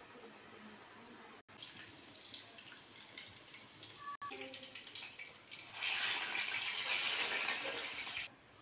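Urad dal vadas deep-frying in hot oil in a steel kadai, the oil sizzling and bubbling. The sizzle is faint at first and gets much louder and brighter about six seconds in, while the vadas are turned with a ladle, then cuts off suddenly.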